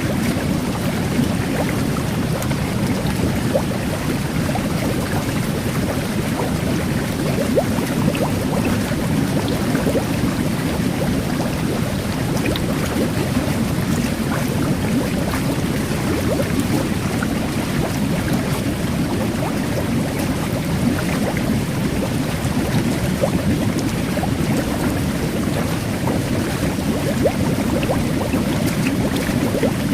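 Jet bath water churning with a steady low rush, with fine carbonated bubbles fizzing over it in scattered tiny pops.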